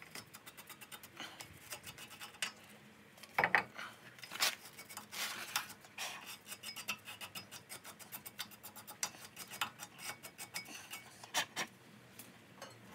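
Wire brush scrubbing a brake caliper bracket where the pads sit, in quick repeated strokes, with a couple of louder knocks about three and a half and four and a half seconds in.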